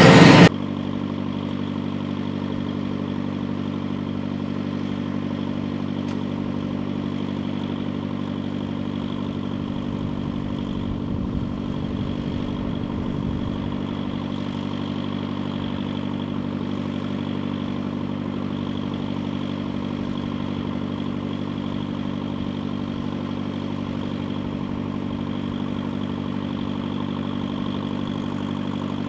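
Hitachi EX8000-6 mining excavator's diesel engines idling, a steady even drone. A little extra low rumble comes in for a few seconds about ten seconds in.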